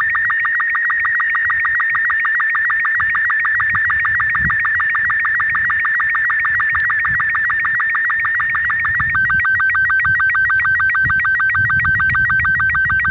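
Robot 36 slow-scan television (SSTV) signal played from a smartphone app: a loud, fast warbling of high electronic tones, sending a photo line by line. About nine seconds in the pattern changes to a steadier tone pulsing about seven times a second.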